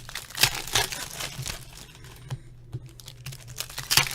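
Plastic wrapping on trading card boxes and packs crinkling and tearing as it is unwrapped: irregular rustles, with the loudest rips about half a second in and near the end.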